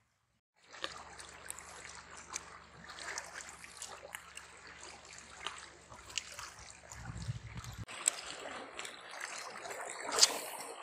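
Small waves lapping and trickling among shoreline rocks, with many small scattered clicks. A brief low rumble comes about seven seconds in, and a sharper knock near the end.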